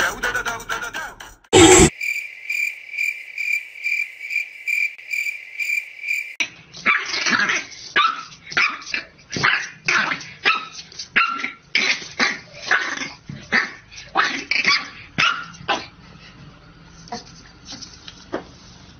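French bulldog puppy barking at its reflection in a fast, uneven run of short high yaps that trails off near the end. Before it comes a loud thump and then a few seconds of an evenly pulsing high chirp.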